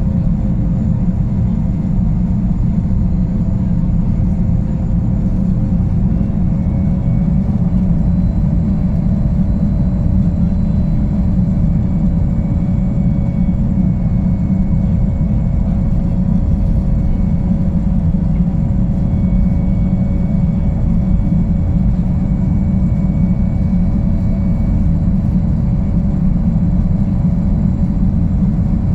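Boeing 929 Jetfoil's gas turbines and waterjets running steadily, a loud low rumble with a steady whine over it; the whine rises slightly about seven seconds in. The vessel is running slowed down after a suspected strike on an unknown object.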